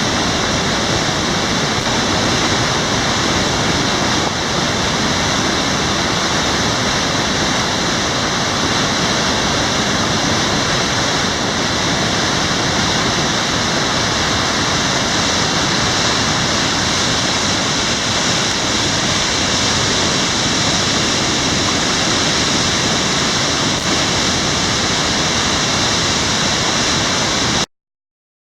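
Loud, steady rush of water that cuts off abruptly near the end.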